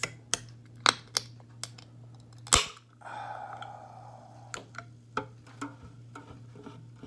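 Aluminium soda can of Coca-Cola Cherry Vanilla being opened: a few light clicks of fingers on the pull tab, then a sharp pop about two and a half seconds in, followed by a brief fizzing hiss of the carbonation escaping. A few small clicks follow.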